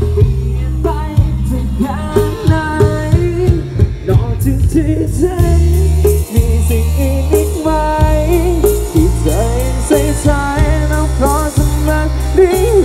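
A song with a singer, heavy bass and a steady drum beat, played loud through a large outdoor PA system of stacked speaker cabinets during a sound-system test.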